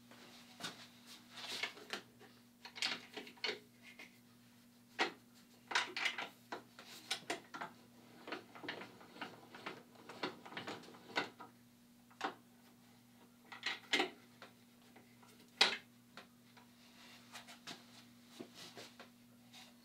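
Wooden blocks and tools being handled at a benchtop drill press: irregular knocks, clicks and light clatter, a few of them sharper, over a steady low hum.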